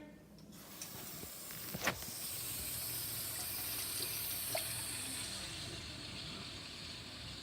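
Water running from a kitchen tap into a pot, filling it, as a steady splashing hiss. There is a short knock about two seconds in.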